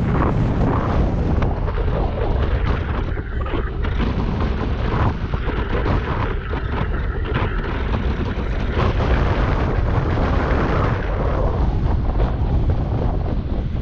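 Wind buffeting the microphone of a camera carried on a moving electric unicycle: a loud, steady rumble and rush with no break.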